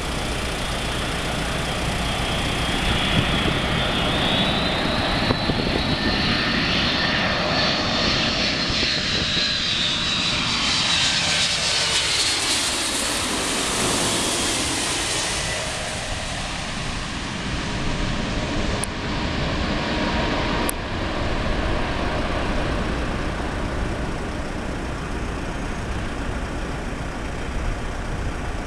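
Boeing 747-400 jet airliner on landing approach, its four turbofan engines giving a high whine over a broad rumble. The whine sweeps as the jet passes overhead about halfway through, then drops lower as it moves away toward the runway.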